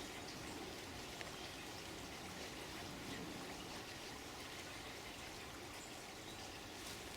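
Steady trickling of flowing water, with a faint click or two.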